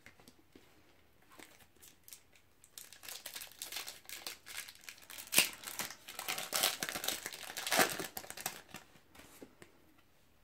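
A trading card booster pack wrapper being torn open and crinkled: a long run of loud crackling from about three seconds in until about nine seconds in, with the sharpest crackles near the middle.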